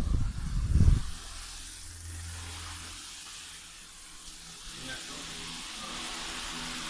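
A brief low rumble in the first second, then a steady faint hiss of room background with a low hum under it.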